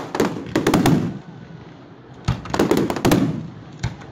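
Aerial fireworks shells bursting in quick clusters of sharp bangs with rumbling booms, one cluster in the first second and another about two and a half seconds in.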